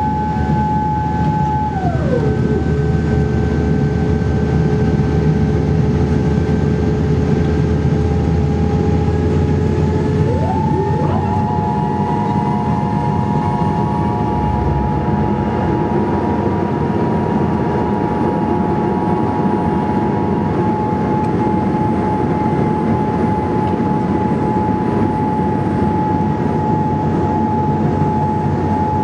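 Cabin noise inside a Boeing 787-8 Dreamliner on approach: a steady rumble of engines and airflow. A high whine sits over it, drops in pitch about two seconds in, and rises back about ten seconds in.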